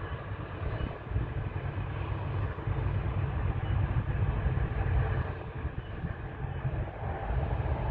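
Distant BNSF diesel locomotives hauling a freight train: a steady low rumble that grows a little louder about halfway through.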